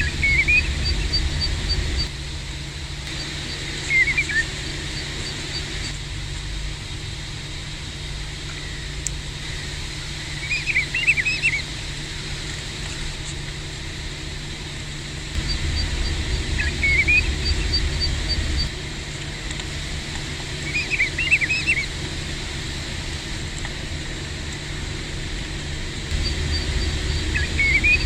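Pacific golden plovers calling: short whistled calls, some single and some in quick clusters of several notes, about six times several seconds apart. At times a fast, even run of faint high ticks and a low rumble sit underneath.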